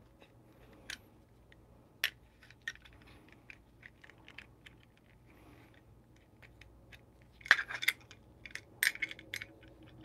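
Small metal tools and parts clicking and clinking as they are handled, with scattered light ticks and a quick run of louder clinks near the end.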